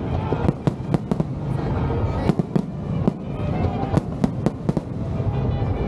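Aerial fireworks bursting in quick, irregular succession: many sharp bangs over a steady low rumble.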